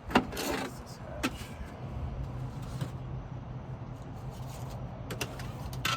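Several short knocks and scrapes from handling on the boat's fiberglass deck, over a steady low hum that comes in about two seconds in.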